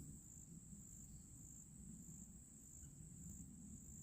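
Faint insect chorus: a steady high-pitched trill over a low rumble.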